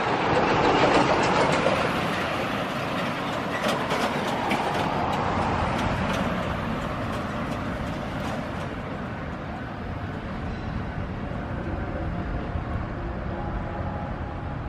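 Kotoden 1300-series electric train running away along the track, loudest about a second in, then fading. From about three to nine seconds in, its wheels click sharply over the rail joints.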